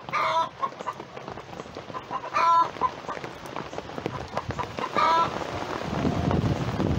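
Chickens calling three times, each a short call about two and a half seconds apart, over scattered ticks of rain dripping. A low rushing noise rises near the end.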